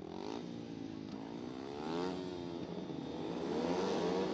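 Several speedway motorcycles' single-cylinder methanol engines revving up and down together at the start tape, the pitch rising and falling as the riders blip their throttles before the tape goes up.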